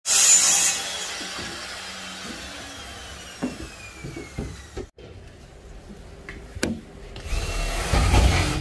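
A power tool starts loudly, then spins down with a slowly falling whine over a few seconds. A second burst of noise with a low rumble comes near the end.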